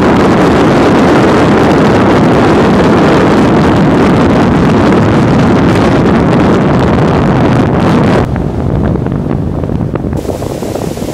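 Heavy wind buffeting the microphone over the running outboard motor and rushing water of a bass boat at speed. About eight seconds in the noise drops abruptly to a lower level and then tapers off.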